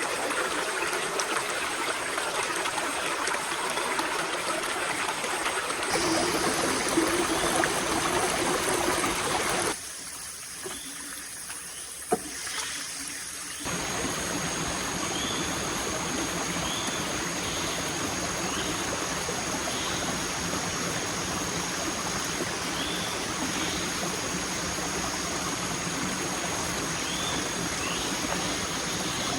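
Running water, like a stream, flowing steadily. About ten seconds in, the sound drops to a softer stretch of some four seconds with one sharp click, then the steady water returns, with faint short chirps over it.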